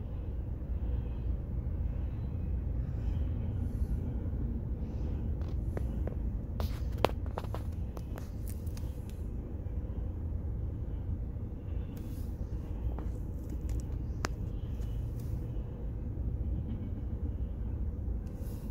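Freight train of intermodal well cars and covered hoppers rolling past: a steady low rumble of wheels on rail, with a few sharp clicks and clanks around the middle.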